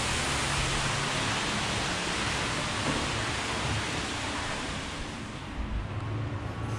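A steady, loud hiss of rushing air at the revolving-door entrance, its brighter upper part fading away about five seconds in as the doorway is passed.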